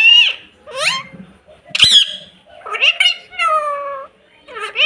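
Pet parrot calling: a run of short, high-pitched squawks and drawn-out whistled notes, some sliding upward, with brief pauses between them.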